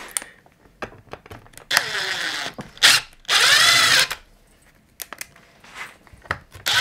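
Cordless driver running screws in: a short burst about two seconds in, then a longer, louder run just after three seconds whose motor whine rises and falls in pitch. A few small clicks come between the runs.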